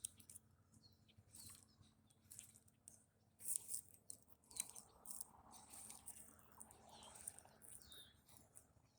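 Near silence: faint outdoor ambience with a few faint scattered high ticks and chirps.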